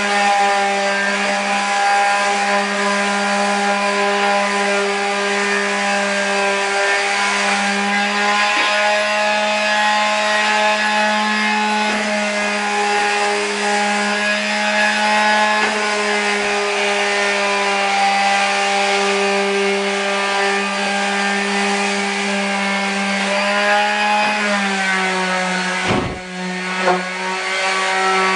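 Power sander running on dried drywall joint compound: a steady, loud motor whine with a rough rasp of the abrasive on the mud. The motor's pitch drops slightly near the end and the sound dips briefly with a knock.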